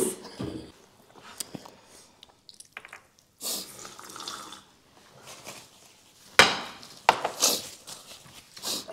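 Dinner-table sounds: scattered light clicks of cutlery and dishes, and a sip of juice from a glass about three and a half seconds in. Two louder short noises come a little after six and seven seconds.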